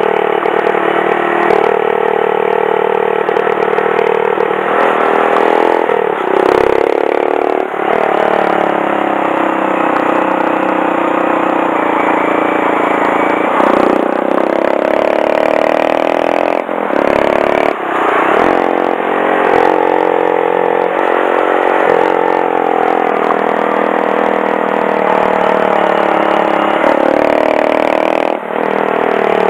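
Honda Monkey 125's single-cylinder engine running as the bike is ridden, its revs rising and falling slowly through the bends, with several brief dips in revs along the way.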